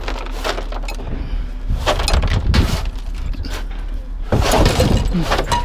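A broom sweeping loose bits of scrap across a pickup truck bed: several scraping strokes, each about half a second long, with small metal pieces clinking, over a steady low hum.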